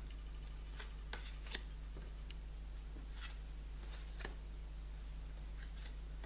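Oracle cards being picked up, slid and laid down on a card-spread mat: scattered soft clicks and light paper rustles, about eight over six seconds, over a steady low hum.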